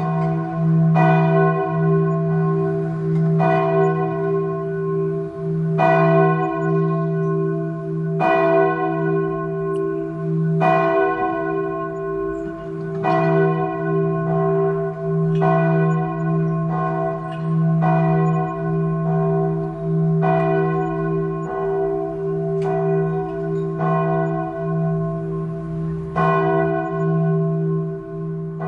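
A single church bell tolling slowly, struck about once every two and a half seconds, with its low hum ringing on between strikes.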